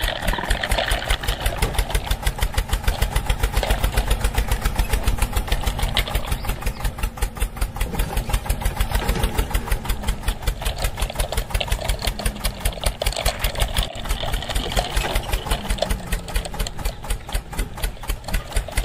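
Tractor engine chugging at a fast, steady beat, the engine sound going with the toy John Deere tractor as it drives along.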